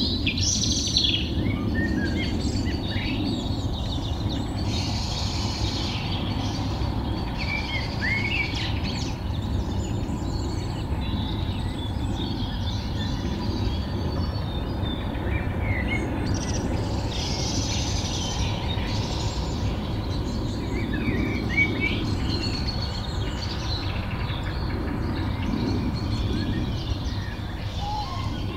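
Outdoor rural ambience: several birds calling and singing in short, scattered chirps and trills over a steady low background rumble.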